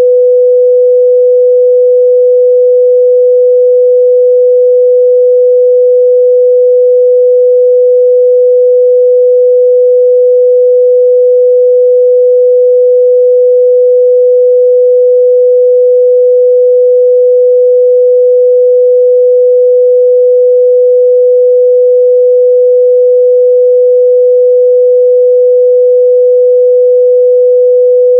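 A steady, loud 497 Hz sine-wave test tone, one pure pitch held without change.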